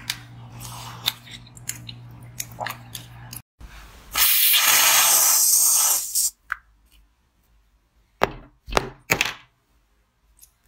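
Ice crunching and cracking as it is bitten from a glass, over a low steady hum. Then an aerosol can of whipped cream sprays with a loud hiss for about two seconds, followed by a few sharp crunches of frozen passion-fruit ice.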